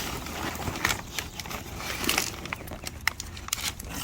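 Scattered light clicks, knocks and rustles of a cardboard box and styrofoam packing being handled as an air dryer filter unit is lifted out.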